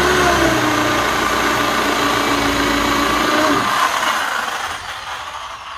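Electric drill with a spade bit boring a hole into a thick wooden plank, the motor running at a steady speed. About three and a half seconds in it slows and winds down.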